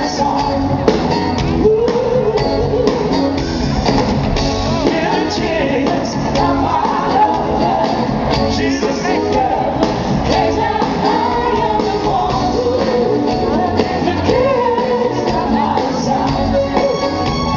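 Live soul band playing on stage, with guitar, bass, drums and a saxophone section, and singers over the top, heard from the audience.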